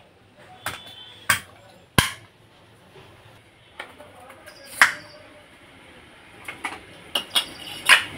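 Irregular sharp metallic clinks and knocks, about ten of them, as the stage parts of a submersible water pump are handled and fitted onto the pump shaft during reassembly.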